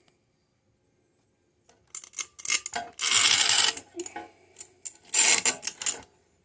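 Handling noise: bursts of scraping and rubbing with light clicks and clatter, starting about two seconds in, loudest in two stretches near the middle and near the end.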